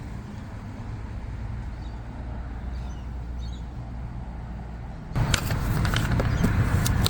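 Car on the road: a steady low engine and road rumble. About five seconds in it cuts abruptly to a louder noisy background with scattered clicks and knocks.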